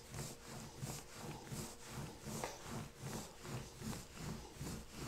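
Wooden rolling pin pushed back and forth over floured pizza dough on a table: a faint, even rub-and-thump, about two to three strokes a second.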